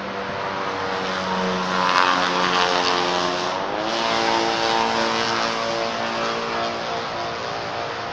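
A motor engine drones past, growing louder to a peak about two seconds in; its pitch steps up near the middle, then the sound slowly fades.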